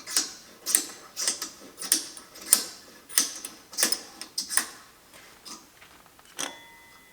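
Steel handle being threaded into a ball vise base, its metal parts clicking lightly about one and a half times a second. The clicks thin out and fade after about five seconds, and a brief metallic ring sounds near the end.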